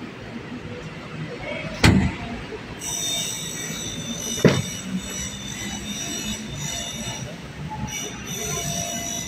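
Car trunk lid shut with a sharp thump about two seconds in, then a second knock a few seconds later. A steady high-pitched whine runs on from about three seconds in.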